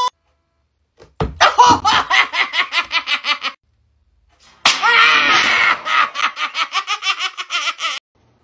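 Two bursts of a man's rapid, staccato laughing, about six falling 'ha' pulses a second, with a silent gap between them. Each burst opens with a sharp smack of a blow to the head.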